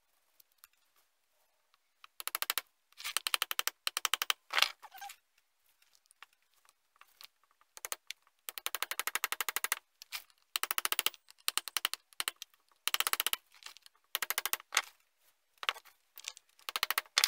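Small hammer tapping a pin punch in several quick runs of rapid light taps with short pauses between, driving the reservoir retaining pins into a new brake master cylinder.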